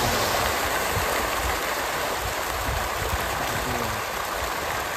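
A dense crowd of farmed fish splashing and thrashing at a pond's surface in a feeding frenzy, with thrown feed pellets pattering onto the water: a steady rushing splash like rain or a stream, loudest as the feed lands at the start.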